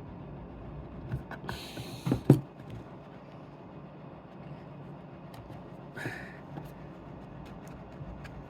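A hard plastic box being cut by hand: scattered clicks and two short scraping, crunching passes, the loudest a sharp knock or snap about two seconds in. A steady low hum runs underneath.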